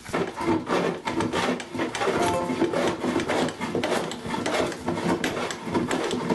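A hand tool working pallet wood in quick, repeated scraping strokes.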